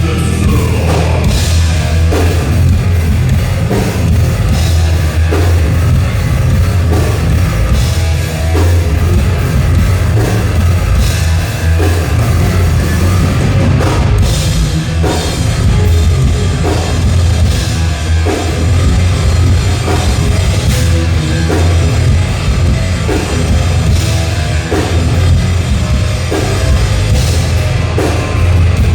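Thrash metal band playing live: loud, dense distorted guitars and bass over a drum kit with regular cymbal crashes, no vocals.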